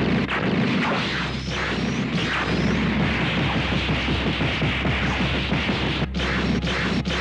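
Anime fight sound effects: a dense, unbroken barrage of punch and blast impacts mixed with whooshes, with a few brief gaps near the end.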